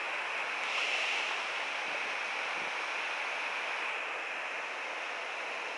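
Steady rush of flowing river water, an even hiss with no strokes or breaks.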